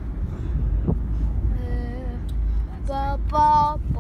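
Steady road rumble inside a moving car, with a child's high voice singing a few drawn-out notes in the second half, the last one the loudest.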